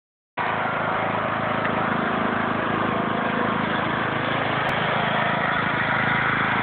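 Riding lawn mower engine running steadily at a constant speed.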